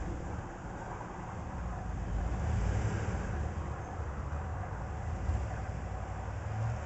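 4x4 vehicle running, a steady low rumble that swells and fades slightly.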